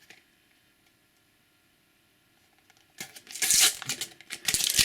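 Near silence for about three seconds, then the loud crinkling and tearing of a foil sticker packet being ripped open by hand.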